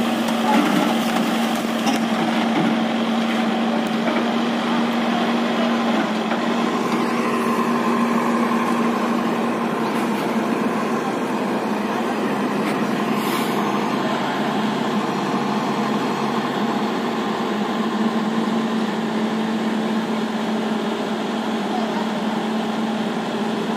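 JCB JS140 excavator's diesel engine idling steadily at an even pitch.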